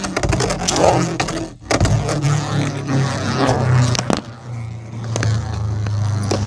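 Beyblade spinning tops whirring and clacking in a plastic stadium. Rattling hits come first, then from about two seconds in a steady low whir broken by occasional clicks.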